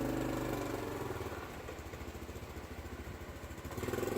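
A small engine running steadily with an even low pulse, a little quieter through the middle and louder again near the end.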